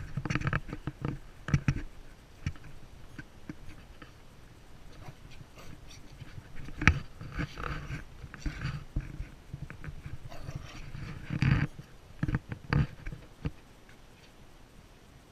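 Miniature poodle puppy making short, scattered vocal sounds as it plays, clustered in the first couple of seconds and again in the middle of the stretch.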